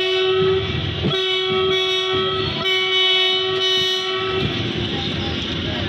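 Train horn sounding, a short blast and then a longer pulsing one that stops about four and a half seconds in, over the steady rumble of a freight train of tank wagons rolling past.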